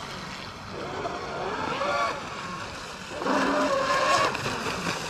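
Radio-controlled speedboat's electric motor whining, its pitch bending up and down as the throttle comes on and off, over the hiss of the hull on the water. The whine is loudest for about a second, around three seconds in.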